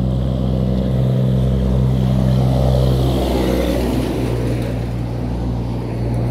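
Highway traffic: a truck drives past, its noise swelling and then fading about halfway through, over a steady low hum.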